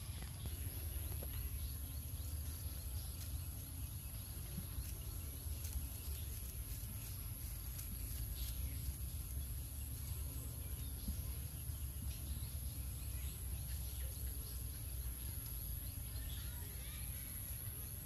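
Rural outdoor ambience: a constant high-pitched insect drone over a steady low rumble, with faint scattered ticks and rustles.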